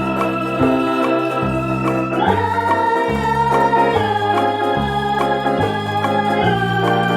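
Background music led by a sustained electronic organ, its bass line stepping to a new note about every second.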